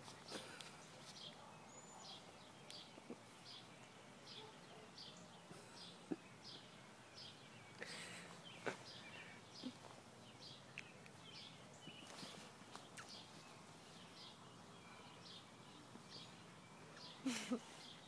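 Faint outdoor quiet with a short high chirp repeating about twice a second throughout, and a few soft knocks and clicks.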